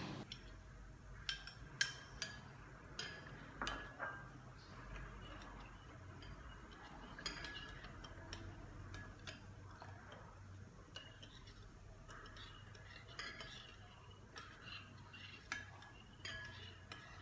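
Metal spoon clinking and scraping against a glass bowl while stirring a thin sauce: scattered light clinks with quiet stretches between, several in the first few seconds.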